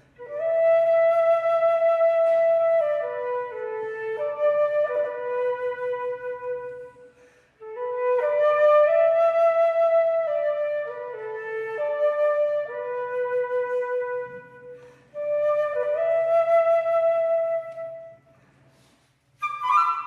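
Solo flute playing a slow melody of long held notes, in phrases with short breathing gaps between them, with one brief note at the very end.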